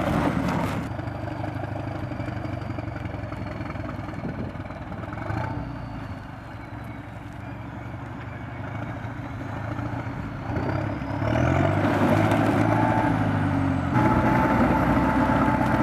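A heavy all-terrain vehicle's engine running under load. Its pitch rises as it revs up about two-thirds of the way through, and it is louder over the last few seconds.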